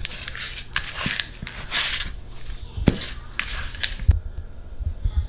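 A spoon scraping and working through stiff cookie dough in a plastic mixing bowl, with a few sharp knocks against the bowl, then dull bumping and handling noise.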